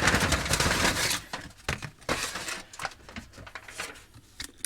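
Aluminium foil crinkling as vegetables are tipped into a foil bag, a dense rustle for about a second, then scattered light taps and rustles as the pieces settle.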